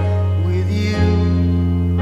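A song: a sung melody over held chords, with the chord changing about a second in.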